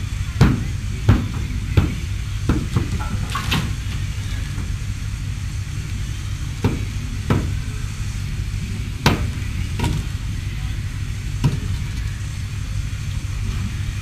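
Sharp metallic knocks and clanks, about a dozen at irregular intervals, over a steady low engine rumble.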